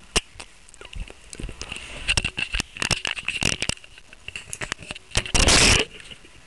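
Contact noise from a camera being handled right against its microphone: irregular clicks and crackles, with one loud rasping burst a little over five seconds in.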